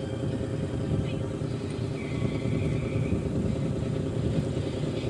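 Tugboat's diesel engines running with a steady low rumble.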